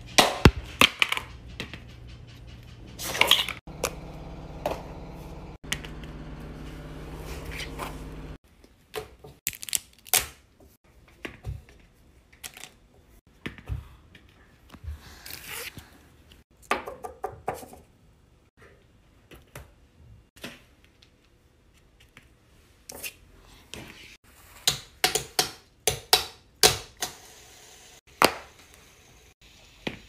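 Plastic fidget toys being handled and set down on a foam-tile play mat: scattered clicks, taps and light knocks, with a steady low hum under the first eight seconds or so.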